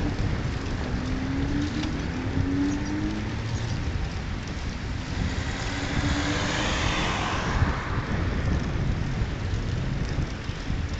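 Wind noise on the phone's microphone during a bicycle ride, with the tyre hiss of a car passing that swells and fades about six to eight seconds in.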